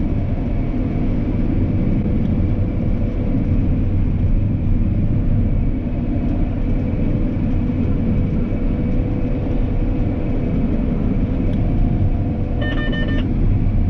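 Harvest machinery, a combine or tractor, running steadily under load: a constant low engine drone with a steady whine over it. Near the end comes a short run of electronic beeps.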